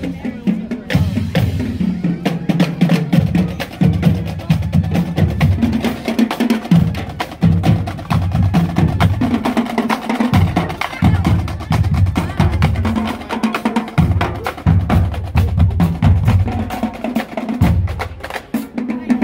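Band music carried by drums: quick snare strokes and bass drum beats over a low bass line that shifts pitch every second or so.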